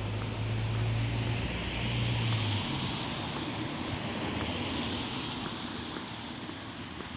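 A vehicle going by: a steady low hum that stops about two and a half seconds in, under a wash of noise that swells and then slowly fades.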